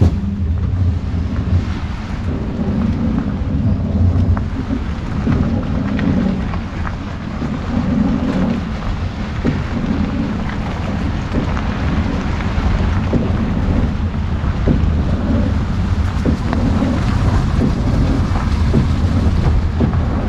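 Steady low rumble of a pickup truck's engine running, with wind buffeting the microphone.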